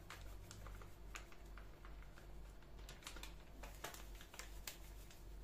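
Faint, irregular crinkling and ticking of a paper sachet of powdered whipped-cream mix as it is shaken out into a glass bowl.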